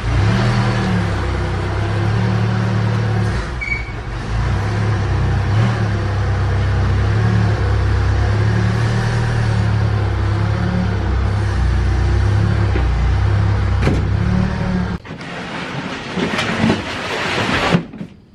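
Yale forklift engine running as it carries a pallet of stacked plastic tubs, its pitch wavering a little. About fifteen seconds in the engine stops, and a few knocks and scrapes of plastic crates being shifted follow near the end.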